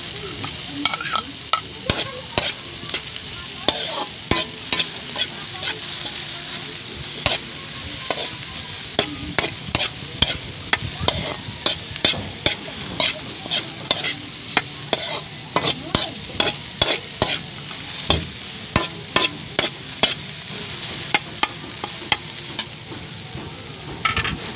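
Metal spoon scraping and clinking against a metal wok in irregular strokes, roughly one to two a second, while dried anchovies and onions fry in oil. A steady sizzle runs underneath.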